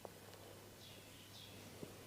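Near silence with a low steady hum, and faint bird chirps twice in the background. Two soft, short clicks, one at the start and one near the end.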